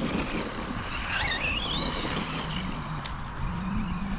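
Arrma Kraton 4S V2 brushless RC monster truck accelerating on the throttle: the motor's high whine climbs in quick steps about a second in, over a low rumble, with a lower wavering tone near the end.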